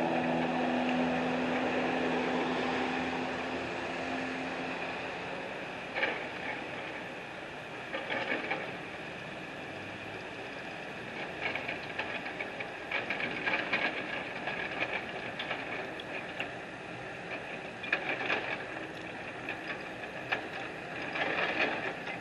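A motor vehicle's engine fades away over the first few seconds, leaving a steady outdoor hiss of street noise. Short bursts of clattering come every few seconds, about five times.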